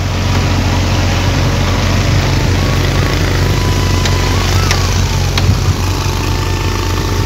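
Engine of heavy construction machinery idling steadily, with a low, even hum.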